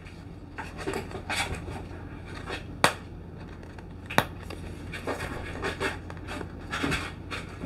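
Fingers and fingernails scratching and rubbing at the paperboard of a boxed camera's peel-open tab, in irregular bursts, with two sharp clicks about three and four seconds in.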